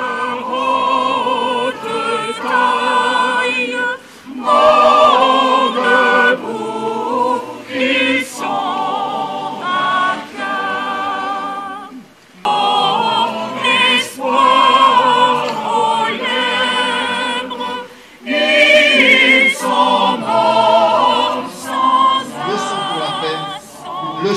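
Crowd of men's and women's voices singing together in chorus, in long phrases broken by brief pauses for breath.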